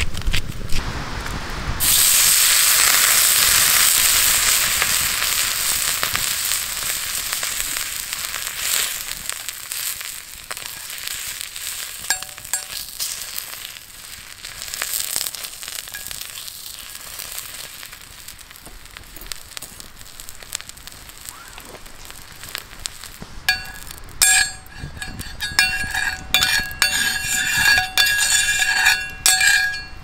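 A thick wagyu steak sizzling on a hot iron griddle over a campfire. The sizzle starts suddenly and loudly about two seconds in as the meat goes onto the plate, then fades over the following seconds. Near the end comes a run of metallic clinks with a short ringing from the steel.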